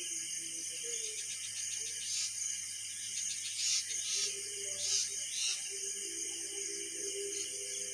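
A steady, high-pitched insect chorus, like crickets, with short bird calls breaking in several times and a faint low tone sounding in the second half.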